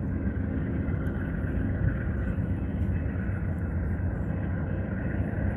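Amtrak diesel locomotive running near at hand: a steady low rumble with a faint hum above it.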